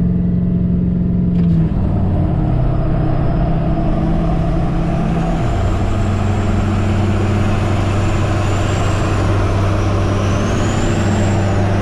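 Pickup truck engines and road and wind noise heard from inside a moving cab on the highway, while a lifted Chevrolet Silverado, a Duramax diesel, runs alongside. The steady low engine drone drops in pitch about five seconds in, and a faint high whistle rises and falls in the second half.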